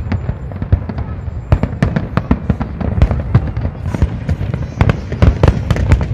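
Aerial fireworks display: a dense, irregular barrage of shell bursts, several sharp bangs a second over a continuous low rumble.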